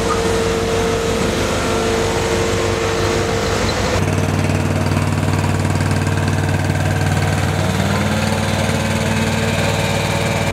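Engine of a heavy road-works vehicle running close by, a steady low hum. About four seconds in the sound changes abruptly to another engine running steadily, its note rising a little near the end.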